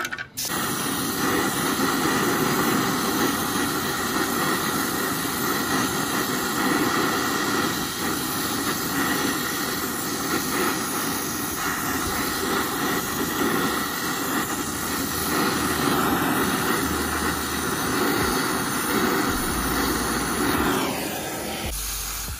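R600 isobutane refrigerant hissing out of a freshly cut line on a freezer's compressor, a loud steady rush that dies away near the end as the system empties of its charge.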